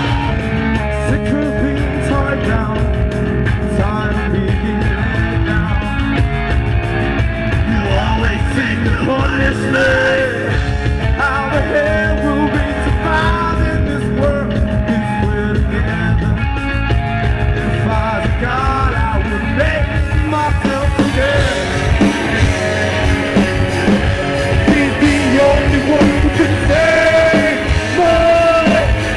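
Rock band playing live and loud: electric guitars, bass guitar and drums, with a singer's voice on top.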